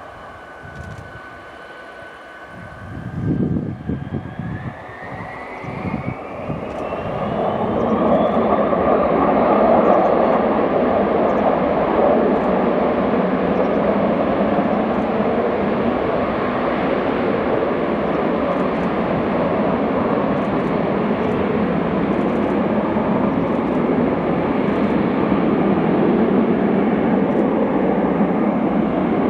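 Tupolev Tu-134UB-L's twin Soloviev D-30 turbofans spooling up: a steady whine rises sharply in pitch about four seconds in, and the engines swell into a loud, steady roar at high thrust, as for a takeoff run.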